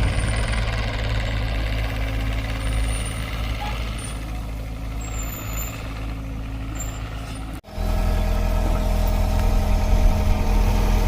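Mini excavator's diesel engine running steadily, with a sudden break about seven and a half seconds in, after which it comes back louder.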